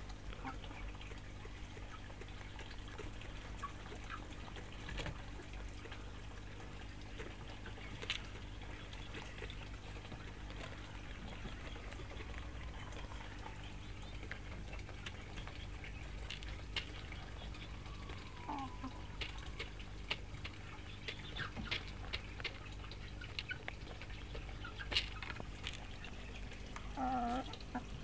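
Domestic hens clucking now and then, with a couple of short calls, one about two-thirds of the way through and one near the end, over a steady low hum and scattered small clicks and rustles.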